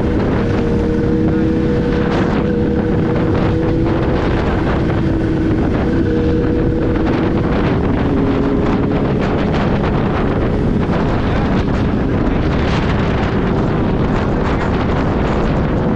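Kawasaki Z H2's supercharged inline-four engine running at a steady cruise of about 75–80 km/h in fourth gear, its note holding nearly level throughout. Heavy wind noise on the microphone runs underneath.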